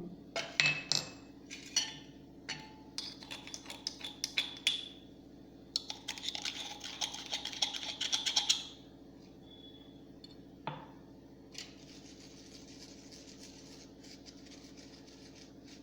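Crushed roasted alum being sieved into powder: a run of sharp clicks and clinks as the sieve is tapped and worked, then a denser rattling scrape for about three seconds in the middle, then a faint steady hiss near the end.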